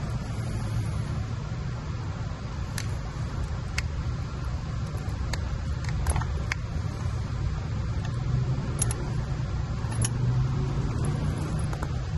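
Light clicks and rattles of e-bike wiring and bullet connectors being handled and fitted, a few scattered sharp ticks over a steady low background rumble.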